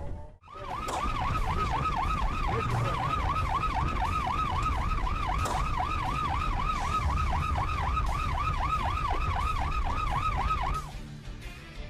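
Emergency vehicle siren on a fast yelp, its pitch swinging up and down about three times a second over a low rumble of engine and road noise. It starts about a second in and cuts off shortly before the end.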